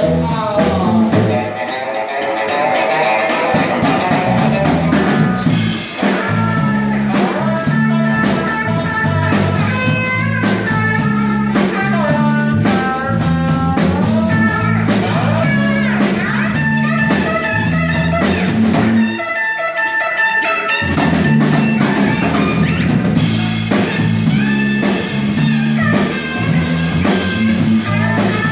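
Live band playing an up-tempo blues instrumental passage: guitar lines over bass and drum kit. About two-thirds of the way through, the bass drops out for a moment before the band comes back in.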